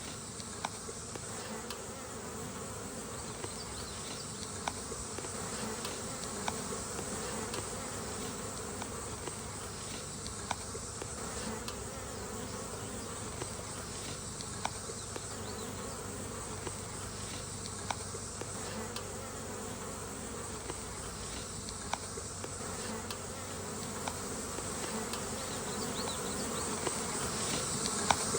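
A large swarm of honey bees buzzing steadily as a dense drone of many bees, with scattered sharp clicks. The buzzing swells slightly near the end.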